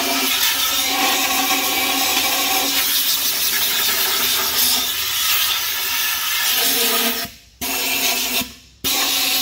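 Compressed-air blow gun blasting air into an empty Ford 9-inch diff housing: a loud, continuous hiss with a hollow whistling tone. The hiss cuts off briefly twice near the end as the trigger is let go and squeezed again.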